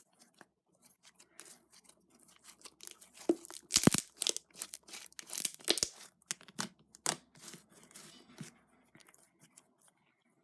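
Glitter slime being kneaded and stretched by hand: a run of small sticky clicks and pops, busiest in the middle and sparse towards the end.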